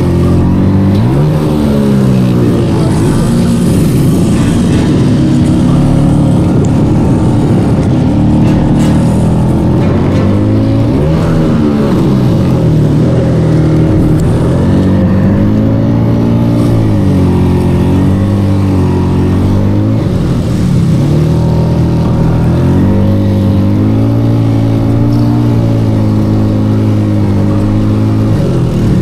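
Motor scooter engine revving up and down many times as it struggles for traction in loose, soft sand.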